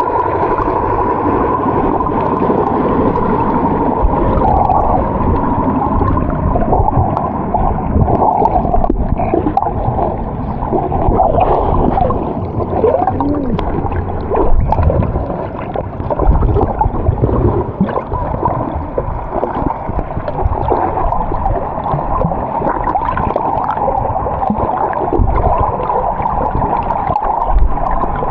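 Muffled water sloshing and gurgling, dull and heavy in the low end.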